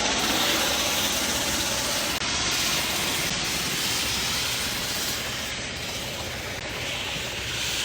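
Helicopter turbine and rotor noise: a loud, steady rush with a faint swell about four seconds in.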